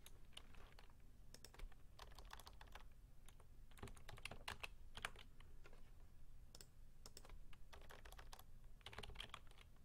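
Faint, irregular clicking of computer keyboard keys being typed, in short flurries.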